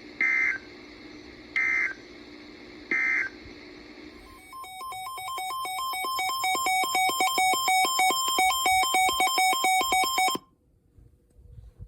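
Three short bursts of EAS digital data tones, the end-of-message code that closes a weather alert, over a receiver's steady hum and hiss. They are followed by about six seconds of fast electronic alert beeping that swells louder and then cuts off suddenly.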